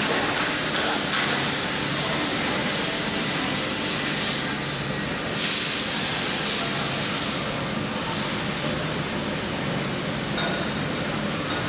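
CNC router spindle running with a long end-mill bit, milling a styrofoam block: a steady hiss with a low hum underneath.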